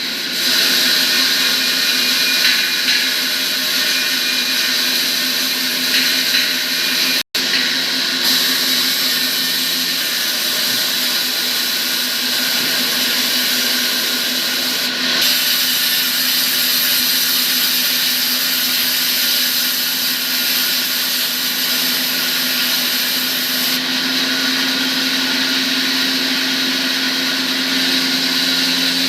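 An electric workshop machine running steadily, a constant hum with a high whine and hiss. It breaks off for an instant about seven seconds in, and the high hiss grows stronger for a stretch in the middle.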